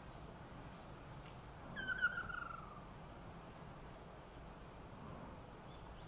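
Male Ryukyu ruddy kingfisher giving one trilled call about two seconds in, falling in pitch over about a second. It is a call to a female.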